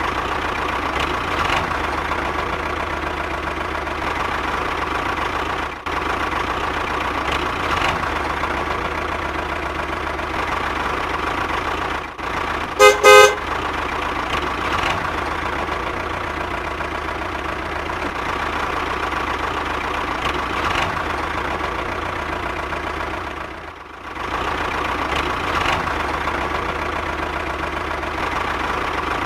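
RC model tractor's engine sound running steadily, a droning hum with a few brief dropouts. A little before the middle comes a quick run of loud horn beeps.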